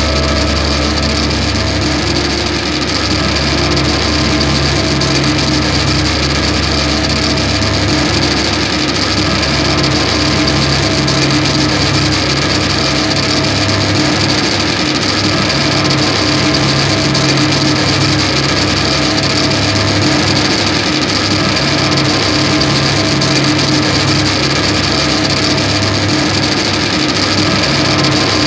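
Loudspeaker feedback drone from hand-built speaker-and-microphone feedback instruments: a loud, steady wall of hissing noise with several held pitches stacked over it, some of them fading in and out as the mix is adjusted.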